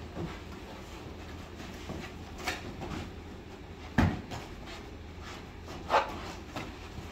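Kicks and punches landing on padded taekwondo sparring gear: a few sharp thumps and slaps, the loudest about four seconds in, with smaller knocks between, over a steady low hum.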